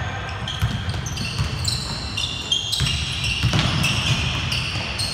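Basketball dribbled on a hardwood gym floor, with many short, high-pitched sneaker squeaks as players cut and shuffle on the court.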